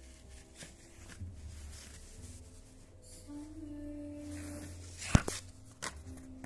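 A folded paper cassette insert being handled and unfolded, with soft paper rustles and a sharp click about five seconds in, followed by a couple of lighter clicks. Underneath runs a faint melody of held notes.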